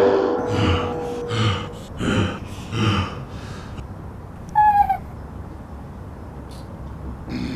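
Cartoon vocal effects: a loud roar fades out at the start, then four short breathy sobs about a second apart. Just before halfway comes a brief high whimper that falls slightly in pitch, from a small crying character.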